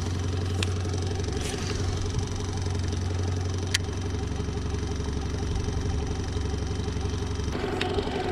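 Small boat outboard motor idling with a steady low hum that changes near the end, with a few sharp clicks.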